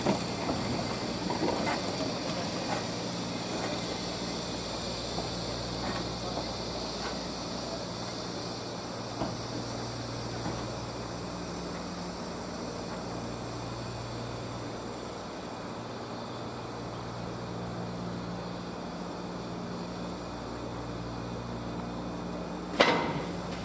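Steam locomotive standing with a steady hiss of steam and a low hum that comes and goes. A single sharp knock near the end.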